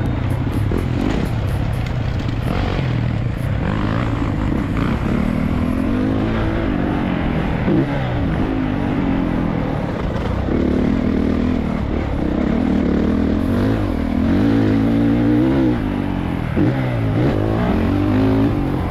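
Motocross dirt bike engine heard from the rider's helmet camera while riding the track, the pitch rising and falling over and over as the rider works the throttle.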